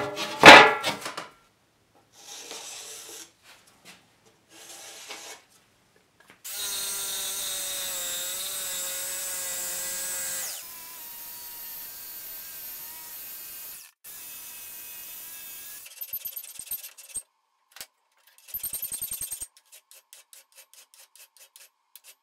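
Electric jigsaw cutting an old laminated countertop, heard in several cut-together stretches: the motor runs steadily with a slightly wavering whine, loudest for about four seconds in the middle, then quieter. Short knocks of handling come at the start, and scattered clicks with a quick run of rapid clicks come near the end.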